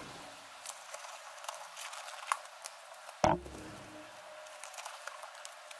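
Black nitrile gloves being pulled onto the hands: scattered light rubbery rustles and small clicks, with one sharper snap about three seconds in.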